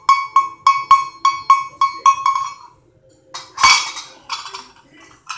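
Hand-held sheet-metal cowbell shaken steadily, its clapper striking about three times a second with a bright ringing tone. The ringing stops about two and a half seconds in, followed by a burst of metallic clanking and a few smaller clinks.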